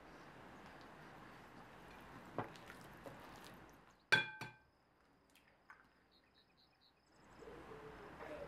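Faint kitchen sounds over a low steady hiss: a light tap about two seconds in, then a single ringing clink against the ceramic mixing bowl about four seconds in. The hiss drops out right after the clink and comes back near the end.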